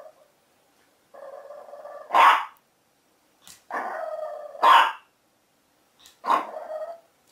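Boston terrier puppy growling and barking in play: three drawn-out grumbling growls, each paired with a sharp bark, about two seconds apart.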